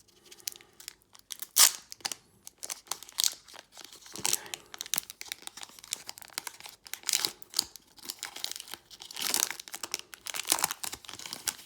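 Foil wrapper of a Pokémon TCG Evolutions booster pack being crinkled and torn open by hand: an uneven run of sharp crackles and rustles, with the loudest crackle about two seconds in.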